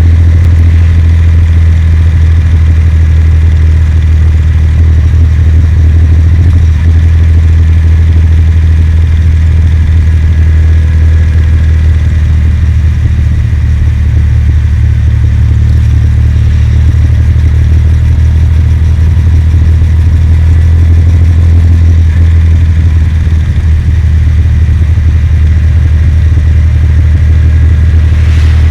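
Kawasaki W800's air-cooled parallel-twin engine running at a steady, even speed while the motorcycle is ridden, under a heavy low rumble of wind on the microphone.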